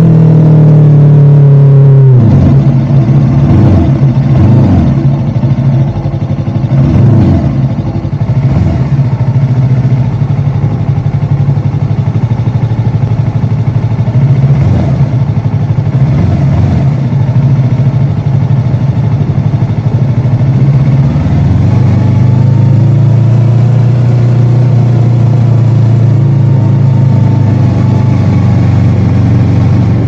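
Motorcycle engine running while being ridden; its note drops about two seconds in, holds fairly steady, then climbs again a little past the twenty-second mark.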